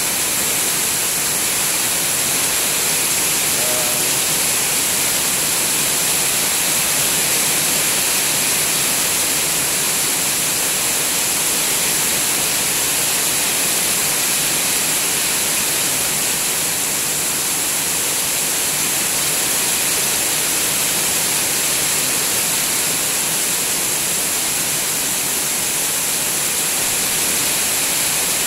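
Heavy rain falling steadily: the dense, even hiss of a tropical downpour on trees and standing water, with runoff pouring off a roof edge.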